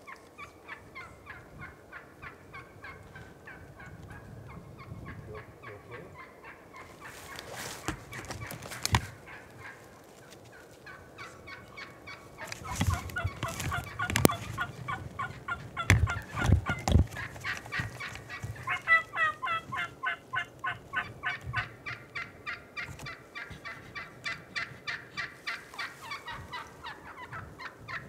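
Wild turkey gobblers gobbling again and again, several birds calling over one another at close range, thickest in the second half. A few sharp knocks and heavy low thumps break in about a third and halfway through.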